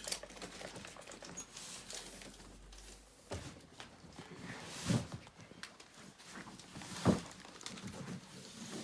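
Handling noises while a TV stand is being fitted: small clicks and rustles, with two dull thumps about five and seven seconds in.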